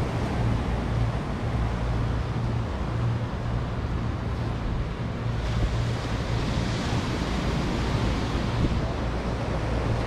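Sea surf breaking and washing on the shore, a steady rushing hiss, with wind buffeting the microphone as a low rumble. The hiss of the surf grows a little stronger about halfway through.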